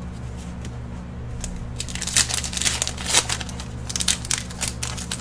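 Foil Pokémon BREAKthrough booster-pack wrapper crinkling and tearing as it is ripped open by hand: a dense run of crackles that starts about two seconds in. A steady low hum runs underneath.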